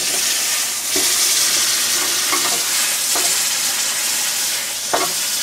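Red-hot medium carbon steel gear sizzling as it is quenched in water, the water boiling and steaming against the hot metal in a steady hiss with a few short pops. The gear was heated to about 2200 degrees for hardening.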